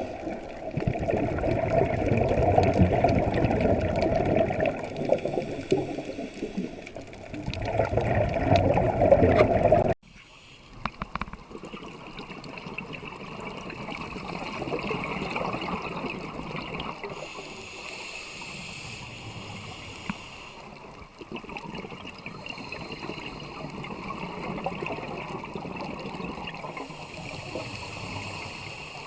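Underwater sound of a scuba diver breathing through a regulator, with exhaled bubbles gurgling in long surges. It cuts abruptly about ten seconds in to a quieter, slowly swelling bubbling.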